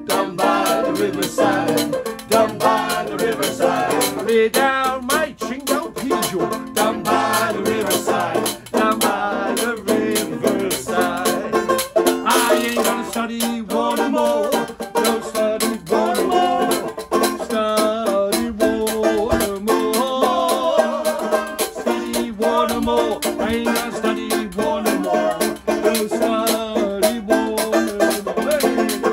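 Live acoustic band playing: a banjo strumming, a washboard scraped and tapped in a steady rhythm, and a man singing over them.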